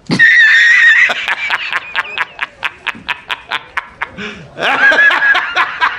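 A man's hysterical laughter from a film clip. It opens with a high-pitched squeal, breaks into a rapid run of short laughs about five a second, and swells into a louder laugh near the end.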